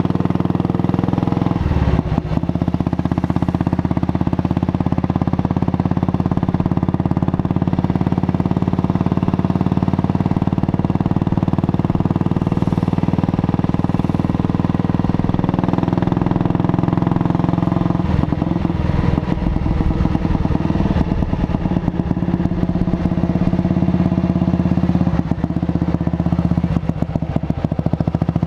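Junak M10 motorcycle's single-cylinder four-stroke engine running steadily under way. Its note changes briefly about two seconds in, and it goes rougher and uneven for a few seconds past the middle and again near the end, as the throttle is worked.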